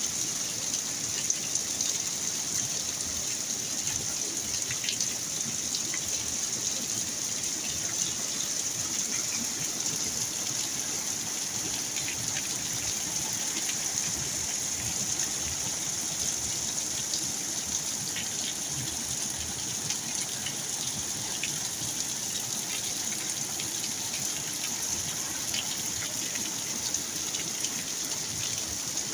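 Rain pouring steadily with a constant rush of water, broken by a few faint sharp ticks of drops.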